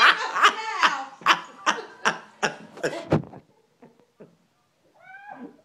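A person laughing hard in breathless, evenly spaced bursts, about two or three a second, that die away about three and a half seconds in. A short high-pitched cry comes near the end.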